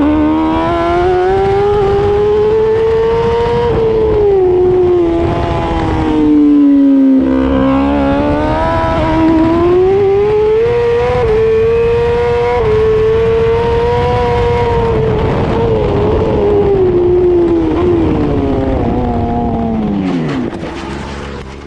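Onboard sound of a racing superbike at speed on track: the engine note climbs and falls through gear changes, drops sharply under braking about seven seconds in, then falls away and fades out near the end.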